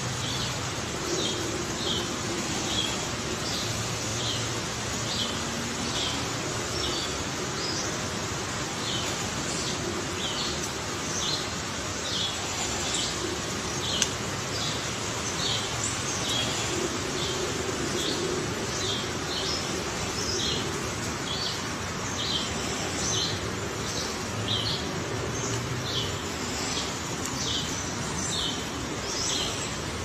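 A bird chirping over and over, short high notes about once or twice a second, over a steady outdoor hiss, with one sharp tap near the middle.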